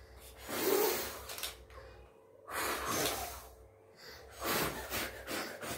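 Children blowing out birthday-cake candles: three long, breathy blows about a second each, with short pauses between.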